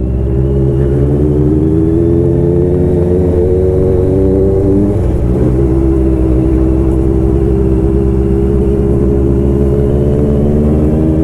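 Superbike engine running at a steady, even pitch while riding, with a brief wobble in pitch about five seconds in.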